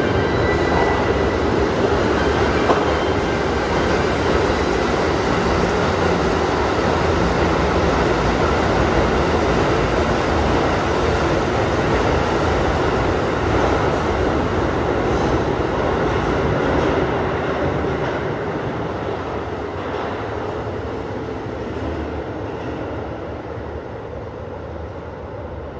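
Sanyo 5000 series electric train running through an underground station at speed without stopping, giving a loud, steady noise of wheels and motors. It fades over the last several seconds as the train goes away into the tunnel.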